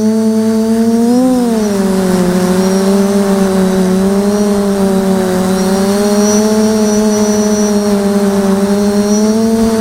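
Motors and propellers of a 550 mm quadcopter humming in flight, recorded by the camera on board. The pitch rises briefly about a second in, then drops and holds with slight drifts as the throttle changes.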